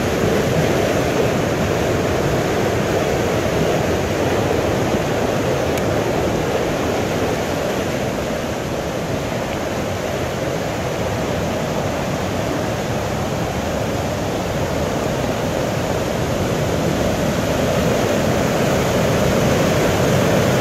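Floodwater torrent of a river in spate: muddy water churning and rushing past, a dense steady rush with no let-up.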